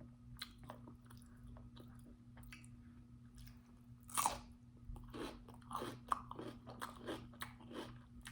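Mouth close to the microphone biting into crunchy food, a loud bite about four seconds in, then quick crunching and chewing, over a faint steady hum. The crunchy food is most likely raw cucumber.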